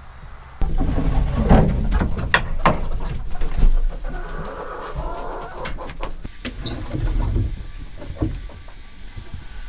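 Hens clucking and calling inside a wooden chicken coop, with a run of sharp knocks and clatter in the first few seconds.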